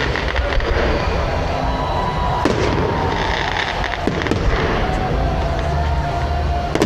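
Aerial fireworks going off: a dense, continuous rumble of bursts with a few sharp cracks.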